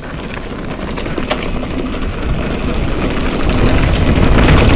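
Mountain bike rolling fast down a loose dirt trail: wind rushing over the action camera's microphone and tyres running over dirt and stones, getting steadily louder as speed builds, with a few sharp clicks from stones or the bike rattling.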